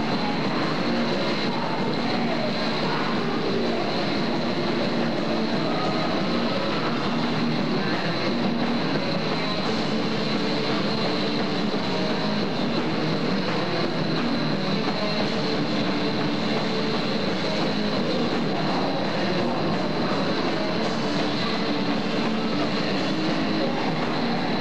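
Rock band playing live, electric guitars and drums, heard through a VHS camcorder's own microphone as a dense, steady wash of sound with held notes buried in it.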